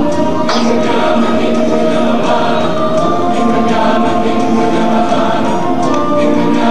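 Show soundtrack music: a choir singing long held chords over instrumental accompaniment.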